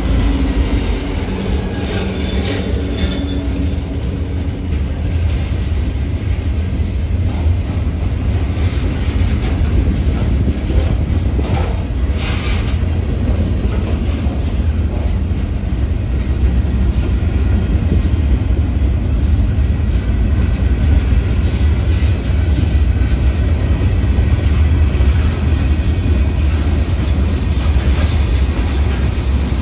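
Freight cars rolling past over steady low rumble, their wheels knocking now and then over rail joints. The diesel locomotive's engine is heard at first and fades as it draws away.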